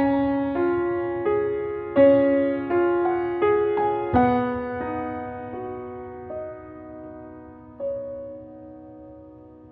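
Background piano music: slow, soft notes struck one or two at a time and left to ring, thinning out and fading in the second half.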